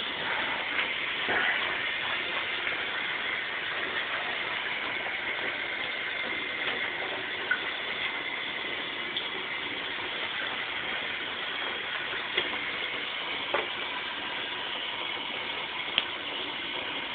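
Water running steadily in a bathtub, an even hiss, with a few faint knocks.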